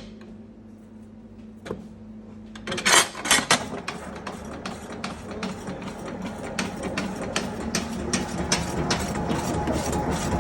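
Meat dicing machine at work: a steady low hum, then from about three seconds in a fast, continuous run of sharp metallic clacks that grows denser.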